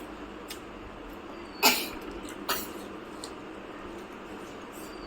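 Mealtime table noise: a few short, sharp knocks and clicks over a steady hiss, the loudest about one and a half seconds in and a second one shortly after.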